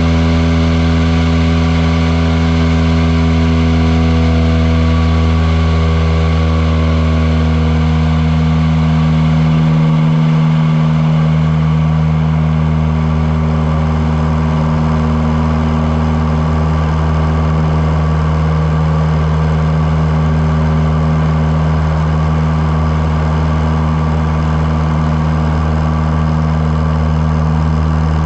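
Light aircraft's engine and propeller running loud and steady at power, as held through a power-on stall; its pitch shifts slightly about a third of the way in, then holds steady.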